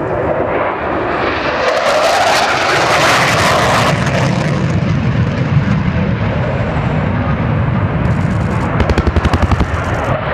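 Jet noise from a Panavia Tornado GR4's twin RB199 turbofans on a low pass: a loud rushing sound, hissiest in the first few seconds, then settling into a deep rumble. Near the end a quick fluttering pulse, about eight beats in a second, rides on top.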